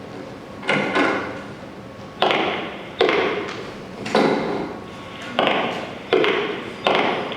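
Sharp knocks repeating roughly once a second, each ringing out and fading in an echoing room.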